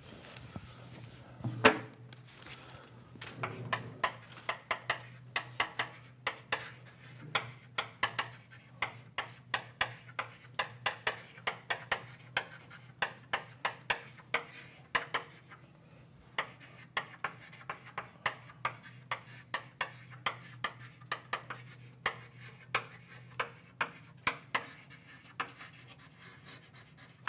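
Chalk writing on a blackboard: a long run of sharp taps and scrapes, about two to three a second, with one louder knock about a second and a half in, over a faint low steady hum.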